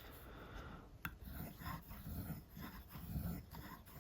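Montblanc Meisterstück 149 fountain pen's 18-karat gold medium nib writing on paper: soft, irregular scratching strokes, with a light tick about a second in.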